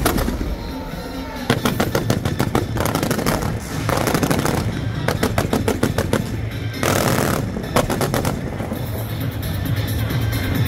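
Wind-fire wheel fireworks display going off: rapid strings of sharp bangs and crackles in dense volleys, about a second and a half in and again around seven seconds in.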